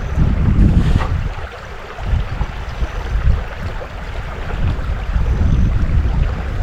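Wind buffeting the microphone in uneven gusts over the steady wash of a river, with a brief lull about a second in.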